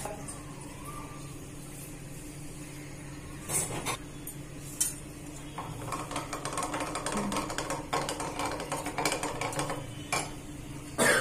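Metal kitchen pots and utensils clinking and scraping: a couple of sharp knocks, then a run of quick light clatter in the second half.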